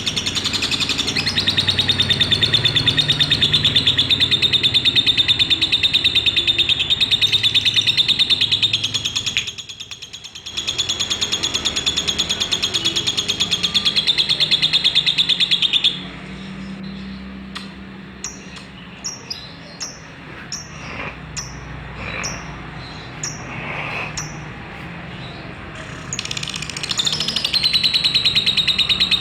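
Lovebird singing its long 'ngekek' song: a fast, continuous high chattering trill held for several seconds at a time. The trill breaks off briefly near the third second-ten mark, stops about halfway through for a stretch of softer separate chirps, and resumes near the end.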